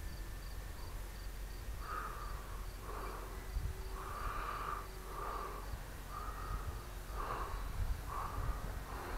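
A bird calling repeatedly, a short harsh call about once a second from about two seconds in, over a low wind rumble on the microphone.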